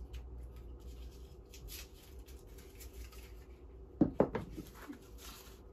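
Rubbing and scratching as the protective covering is worked off the ends of wooden loom beams, then a few sharp wooden knocks about four seconds in as two beams are set down on the floor.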